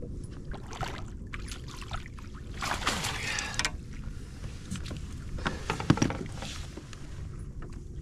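Water splashing for about a second, roughly three seconds in, as a smallmouth bass is scooped up in a landing net beside a kayak. Then a few clicks and a sharp knock near six seconds as the net and fish come against the kayak, over a steady low rush of wind and water.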